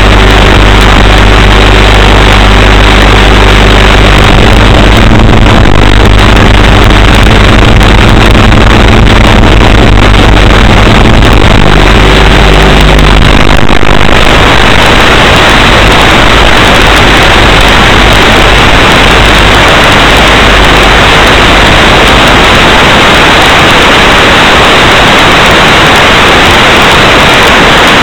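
Loud, distorted buzz with a steady low hum from a micro FPV quadcopter's analog video recording, changing about halfway through into a harsh, even hiss like static as the quad flies.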